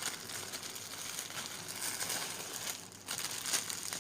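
Plastic packaging crinkling and rustling as phone parts are handled, with a short lull a little before the three-second mark.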